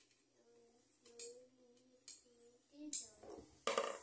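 Light clicks and knocks of fan parts being handled and fitted into place, a few single clicks then a busier cluster near the end, over a faint wavering hum of a voice in the background.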